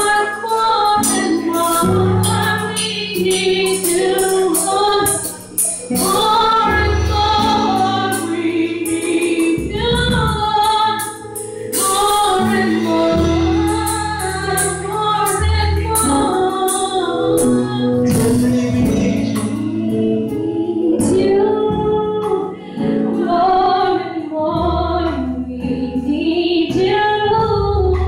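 Several women singing a gospel song into microphones, over band accompaniment with low bass notes and frequent percussion hits.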